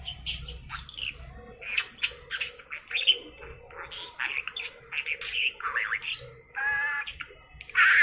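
Budgerigar chattering and warbling: a quick run of short chirps, clicks and squawks, with one longer buzzy note about seven seconds in and a loud squawk near the end.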